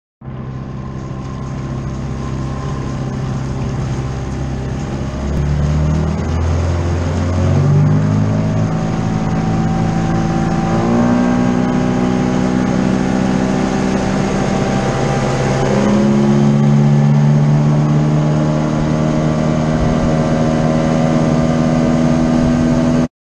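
A skiff's outboard motor running under way and accelerating, its pitch climbing in several steps as the boat picks up speed. It cuts off suddenly near the end.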